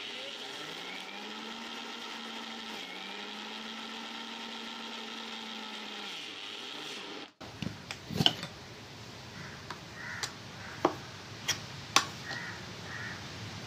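Electric mixer grinder running in short pulses, its steel jar grinding cashews into an oily paste: the motor speeds up at the start, dips once, then winds down after about seven seconds. After that a metal spoon scrapes and clinks a few times against the steel jar as the paste is stirred.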